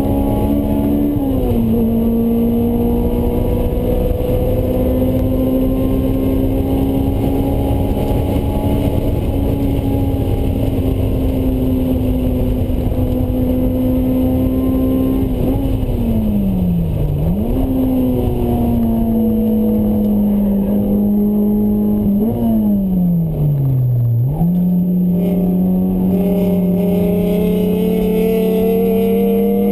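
Honda S2000's four-cylinder engine through a Mugen exhaust, heard from inside the cabin, running hard at high revs on a track. The engine note holds high and climbs slowly, dips briefly about a second in, and twice falls away steeply for a second or two before jumping back up.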